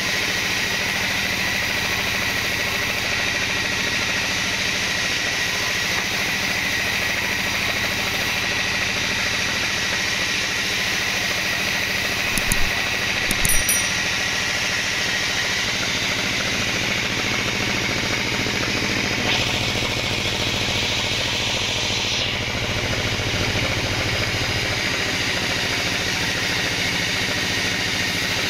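Band sawmill running steadily, the blade cutting through kenanga wood over the machine's hum, with two sharp knocks about halfway through.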